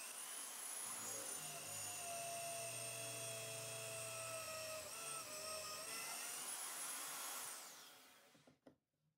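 A drill press motor runs with a steady whine while a twist bit bores through a plywood block, its pitch dipping slightly under load. Near the end the motor is switched off and winds down with a falling whine.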